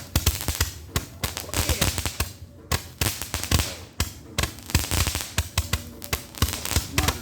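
Fireworks going off in a rapid, dense barrage of bangs and crackles, typical of a grand finale, with a brief lull about two and a half seconds in.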